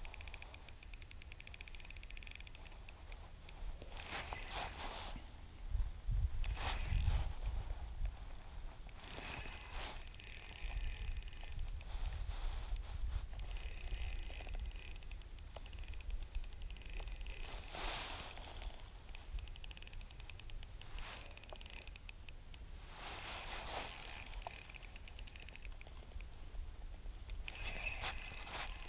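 Ultralight spinning reel clicking and ratcheting in repeated runs of rapid clicks while a large catfish is fought on it, line going out and being cranked back. A low rumble comes about six to eight seconds in.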